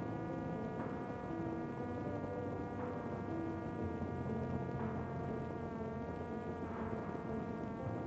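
Steady buzzing whine of the Parrot Disco fixed-wing drone's electric motor and rear pusher propeller at constant cruise power, with a faint swell about every two seconds.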